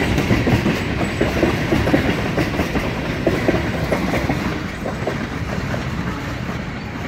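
Freight train of tank cars rolling past, its wheels clacking over the rail joints over a steady rumble. The sound slowly fades as the last car passes and the train moves away.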